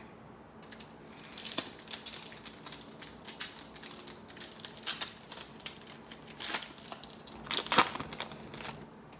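A football trading card pack's wrapper being torn open and crinkled by hand, in irregular crackles that are loudest near the end.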